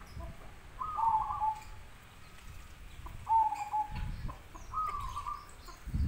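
Zebra dove (perkutut) cooing: three short stepped coo phrases, each about half a second long.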